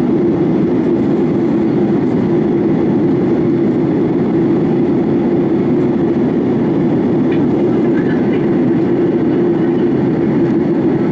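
Steady cabin drone inside a Boeing 737-900ER in flight, its CFM56 engines and the airflow over the fuselage making an even, low hum with no change in pitch.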